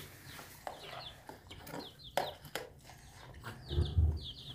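Chickens calling in short, high, repeated peeps, a quick run of them near the end, with a few sharp clicks of a metal spoon against a plastic bowl.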